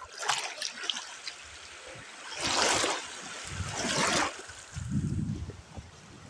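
Small choppy sea waves, whipped up by a rising storm wind, washing in over a shallow grassy shore and splashing right over the microphone. There are two loud surges about a second and a half apart, the first about two and a half seconds in, and a low rumble after them.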